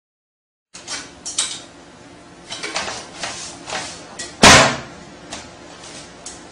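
Knocks and clatter of a toilet seat and lid as a dog paws at them and gets the seat down, starting about a second in, with one loud bang about four and a half seconds in.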